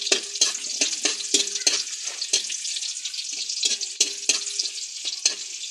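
Sliced onion and garlic sizzling in oil in a metal wok as they brown. A metal spatula scrapes and taps the pan about three times a second, each stroke ringing briefly, and the stirring stops shortly before the end while the sizzling goes on.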